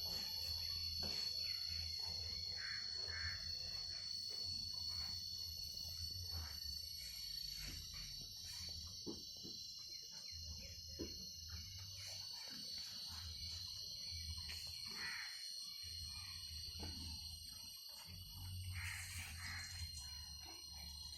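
Pigs grunting and snuffling now and then over a steady high insect drone.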